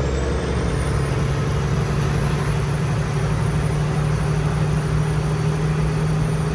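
Freightliner truck's turbocharger whistling: a thin, high whine that rises in about the first second and a half as it spools up, then holds steady over the even drone of the diesel engine, heard from inside the cab.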